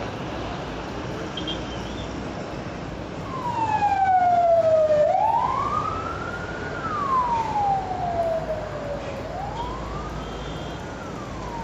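An emergency vehicle's siren wailing in slow sweeps, starting about three seconds in: falling, rising, falling and rising again, loudest on its first fall, over a steady background of road traffic noise.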